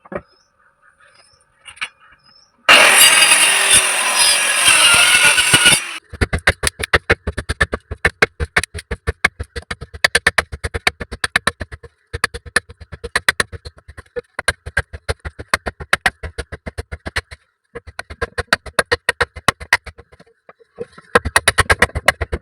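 A blacksmith's hammer striking metal on an anvil in fast, even runs of about five blows a second, with short pauses between runs. These follow about three seconds of loud grinding or hissing noise with a wavering whine.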